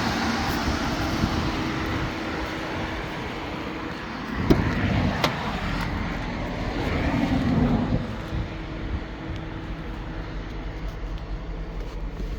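Steady vehicle noise with a sharp thump about four and a half seconds in and a brief swell shortly before the eight-second mark, after which it settles quieter.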